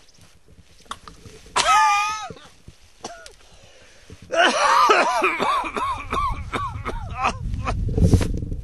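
A man groaning and coughing in distress: a short strained cry, then a quick run of choked gasping moans. A low rumble builds near the end.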